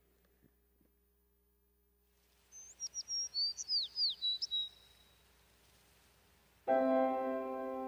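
Bird chirps at the start of a children's video: a quick run of short high chirps and falling whistles lasting about two seconds. Gentle music with held notes starts near the end.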